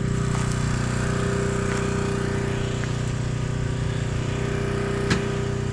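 Portable generator engine running at a steady speed while it charges batteries, a constant even hum. A single brief click about five seconds in.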